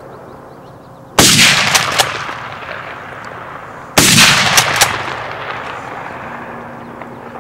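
Two loud gunshots close by, about three seconds apart, each with a long echoing tail that fades over a couple of seconds.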